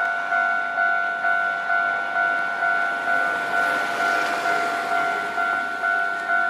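Japanese level-crossing warning bell ringing its steady 'kan-kan' alarm, a two-tone electronic clang repeated about twice a second, warning of an approaching tram. A rushing noise swells and fades around the middle.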